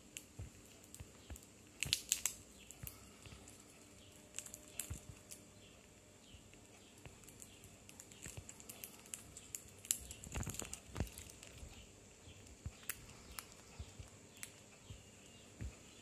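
Quaker parrot (monk parakeet) biting and nibbling a nut held in its foot: scattered small clicks and crunches of beak on nut, with louder bursts about two seconds in and again around ten seconds in.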